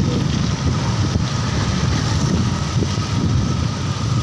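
Wind buffeting the microphone of a phone carried on a moving bicycle: a steady, loud, fluttering low rumble.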